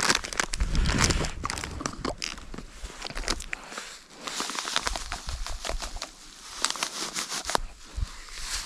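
Irregular crinkling and rustling with many small sharp clicks and crackles, like material or gear being handled, quieter for a moment about four seconds in and again around six to seven seconds.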